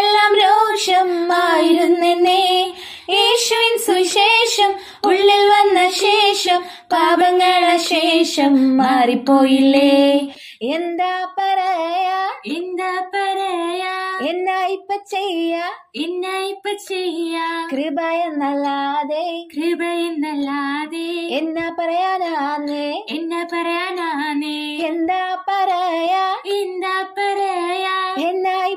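Two young women singing a Malayalam song together, unaccompanied, in long held notes. About ten seconds in, the singing breaks off and picks up again a little quieter.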